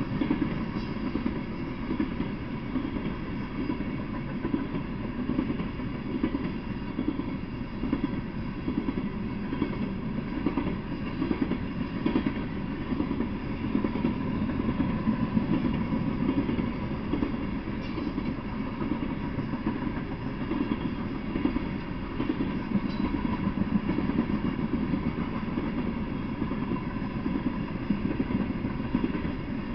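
Loaded coal hopper cars of a freight train rolling past at steady speed: a continuous low rumble of steel wheels on rail with frequent wheel clacks.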